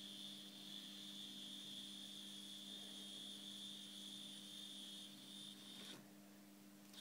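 Faint high whine from the motor of a Hobbytrain N-scale Pacific steam locomotive model, a loco with running problems, over a steady low electrical hum. The whine cuts out for about a second near the end while the hum goes on.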